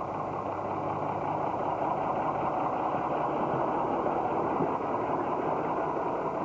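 Truck engine running steadily, a constant low engine noise with no change in pace.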